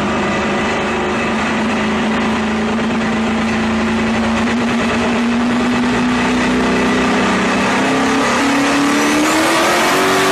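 Pickup truck engine running hard on a chassis dynamometer during a dyno pull, a loud, steady drone. Its pitch climbs over the last couple of seconds as the revs rise.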